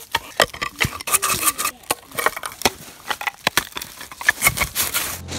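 Yellow Labrador retriever crunching and chewing on something hard, a rapid, irregular run of sharp cracks and crunches.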